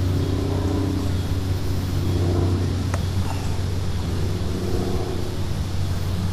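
Steady low hum with an even hiss, the background of a large indoor hall, with faint distant voices now and then and a single sharp click about three seconds in.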